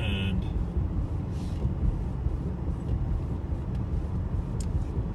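Steady low road and engine rumble inside a car's cabin as it drives slowly along a highway exit.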